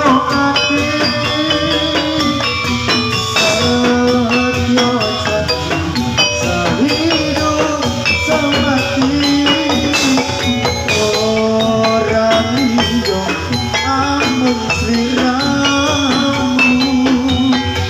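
Javanese gamelan playing live for a jathilan (kuda lumping) horse-trance dance: struck bronze metallophones ringing steady notes over drumming, with a voice singing over it.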